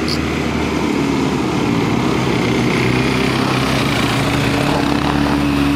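Several quad bikes (ATVs) running in a column, their small engines making a loud, steady drone with a slight waver in pitch near the end.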